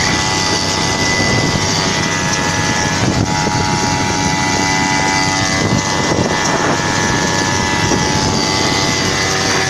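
Small grass-cutter engine fitted to a bicycle, running steadily at a constant speed.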